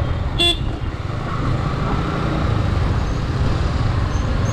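Yamaha motorcycle engine running steadily at low speed, with road and traffic noise. A brief horn beep sounds about half a second in.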